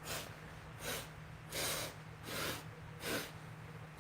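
A woman's short, faint sniffing breaths through the nose, five in a row at about one every three-quarters of a second, while a nasal test swab is in her nostril.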